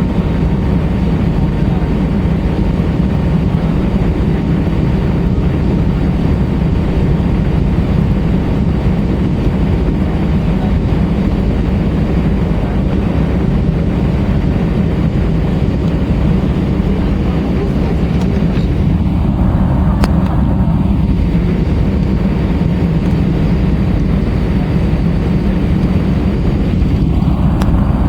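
Airbus A320's IAE V2500 jet engines and rushing air heard as a steady, loud drone from inside the cabin during takeoff.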